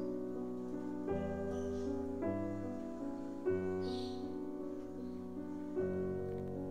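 Slow, soft background music of held chords that change every second or two.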